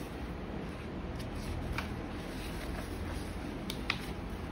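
Large paper posters handled and slid over one another by hand, with a few short crisp paper ticks, over a steady low background hum.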